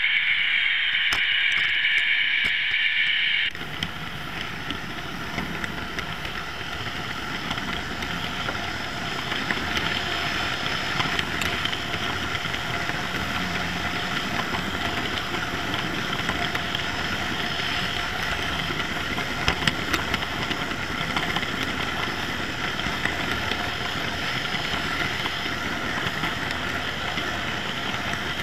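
OO-gauge model train running through a track helix, heard from a camera car riding on it: a steady rolling rumble of wheels on rail with motor whine. A higher steady hiss cuts off about three and a half seconds in, and small clicks from rail joints come now and then.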